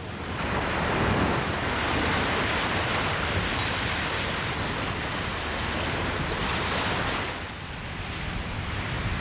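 Loud rushing of sea water with wind, an even hiss without any tone. It swells in sharply just after the start and eases off near the end.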